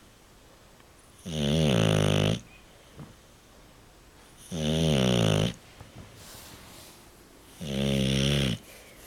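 English bulldog snoring in its sleep: three loud snores about three seconds apart, each lasting about a second, with quiet gaps between.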